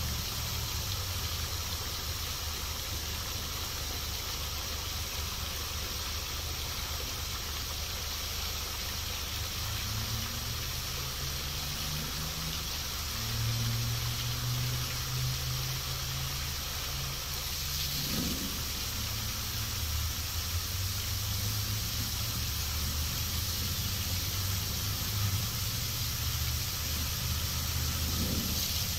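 Steady rushing and splashing of a large fountain's tall water jet falling into its basin, with a low hum underneath.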